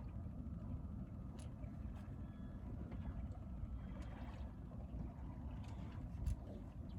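Boat motor running steadily, a low rumble.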